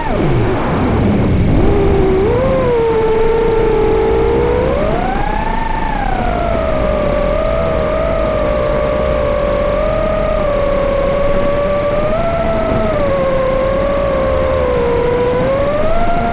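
FPV quadcopter's brushless motors whining through the onboard camera microphone, the pitch following the throttle. It drops sharply at the start as the throttle is cut, climbs back over the next couple of seconds, swells about five seconds in, then holds with small rises and dips.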